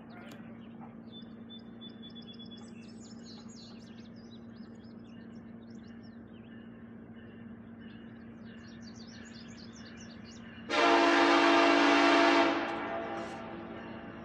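Diesel locomotive air horn, most likely on the approaching CN SD70M-2 lead unit, sounds one long blast of about two seconds, starting about ten and a half seconds in and fading off afterwards. Before the blast, birds chirp over a steady low hum.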